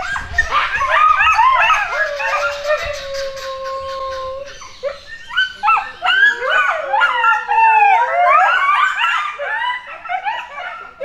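A pack of coyotes howling and yipping together, several voices at once, with long drawn-out howls among quick yips.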